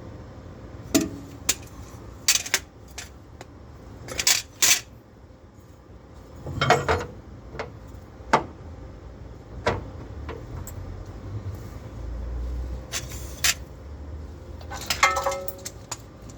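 Scattered metal clinks and clanks of steel brackets and hand tools being handled and set in place, a dozen or so separate knocks with a quick cluster near the end.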